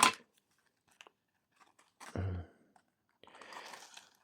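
Handling of an old pipe tobacco tin and its paper liner: a short sharp sound at the start, a low thump about two seconds in, then dry paper rustling and crinkling near the end as the paper over the tobacco is lifted.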